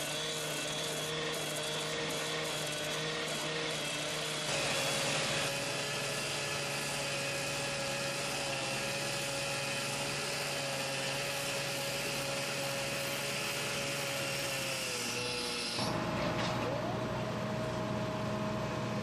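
Gas-powered rail saw running at high speed as it cuts through a steel rail. The engine holds a steady high pitch that sags slightly near the end of the long middle stretch. The sound changes abruptly twice.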